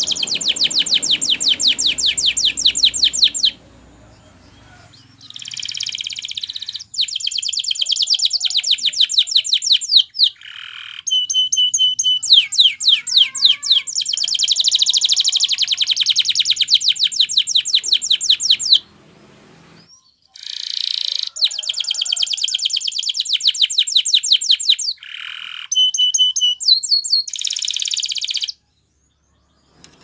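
Canary singing: long phrases of very fast rolled trills, with a few short steady whistled notes between them, broken by short pauses.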